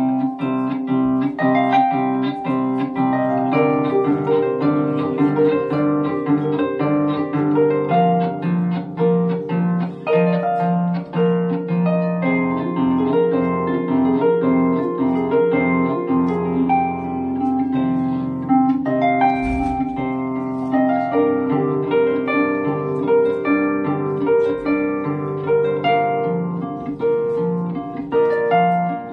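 Celtic lever harp played solo with both hands: a running pattern of plucked notes over repeated low bass notes, the strings ringing on into one another.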